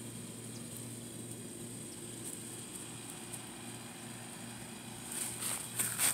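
Steady low mechanical hum in the background. A few short rustling scuffles come about five to six seconds in.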